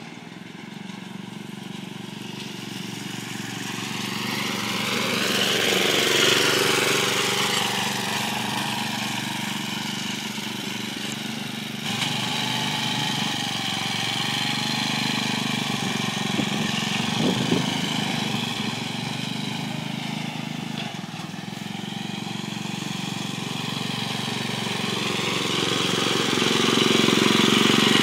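Small engine of a walk-behind tractor converted into a ride-on minitractor, running as the machine drives about; it grows louder and fades as it comes near and moves away, loudest about six seconds in and again near the end. About twelve seconds in the sound jumps abruptly to a different take of the same engine.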